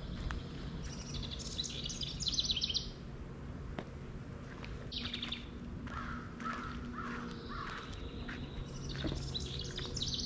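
Wild songbirds singing in woodland: a fast trill of high notes about a second in, repeated near the end, with a shorter high phrase and some lower calls in between.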